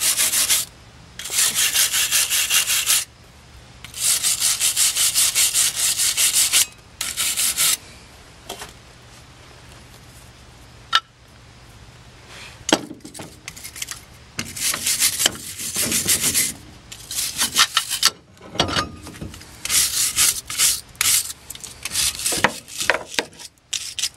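Hand wire brush scrubbing brake dust and rust off a front brake caliper mounting area, in four bursts of rapid back-and-forth strokes over the first eight seconds. After a quieter stretch come scattered clicks and knocks of the metal caliper and brake parts being handled.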